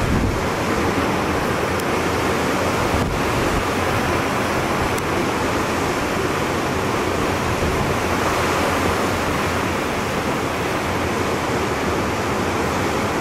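Steady wash of sea surf and wind, with wind buffeting the microphone in low rumbles.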